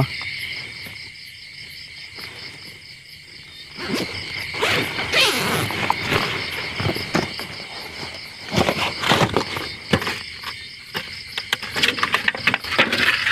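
Crickets chirping in a steady, even pulse. From about four seconds in, the rustle and clatter of hands rummaging in a bag and setting down plates rises over them.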